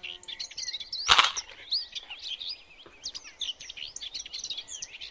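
Small birds chirping busily and continuously, many quick high chirps overlapping. A single sharp crack sounds about a second in.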